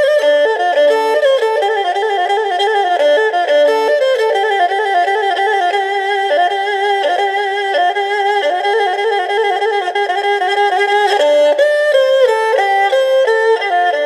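Erhu playing a quick melody, its notes moving in fast runs with a wavering vibrato.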